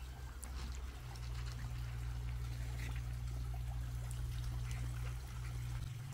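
Water trickling and pouring steadily into a garden fish pond, over a low steady hum that stops near the end.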